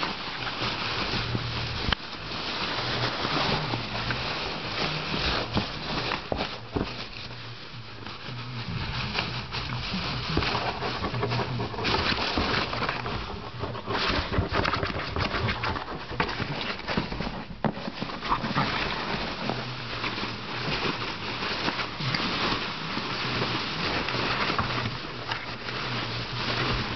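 Foam packing peanuts rustling and crunching against each other and the cardboard box as two puppies dig and wrestle in them, a constant scratchy rustle dotted with small clicks.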